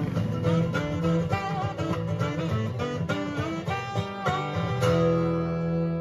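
Background music: acoustic guitar picking a melody, settling onto a held chord near the end.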